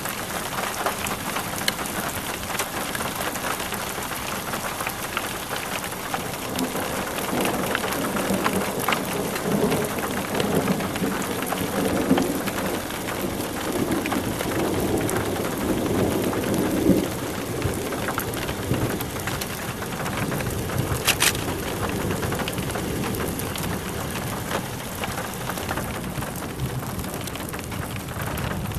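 Heavy rain pattering on a hard surface, a dense crackle of drops throughout, with thunder rumbling through the middle, strongest between about eight and seventeen seconds in.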